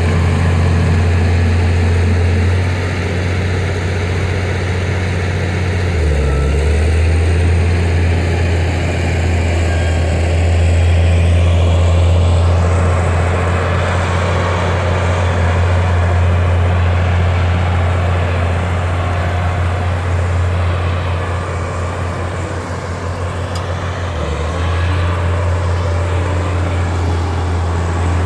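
Heavy diesel engines running with a steady deep drone: a dump truck tipping its load of soil, then a Caterpillar D6D crawler bulldozer pushing dirt. The drone shifts slightly about six seconds in and again near the end.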